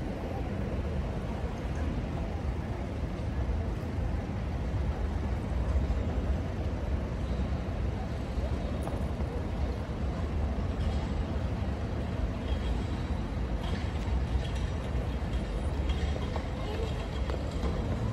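Steady low rumble of wind buffeting the microphone over open-air city-square ambience, with faint distant voices of passers-by.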